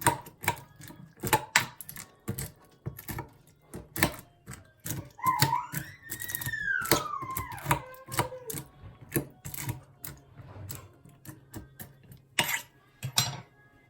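Spoon clicking and knocking against a bowl as Maggi noodles are stirred with their spices, in irregular taps a few per second. About five seconds in, a high gliding tone rises and then falls over some three seconds.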